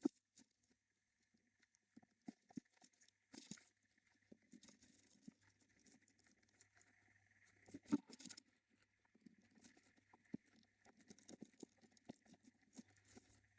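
Faint scratching, tapping and rustling of a budgie moving about in its nest, with scattered sharp clicks, the loudest near the start and about eight seconds in.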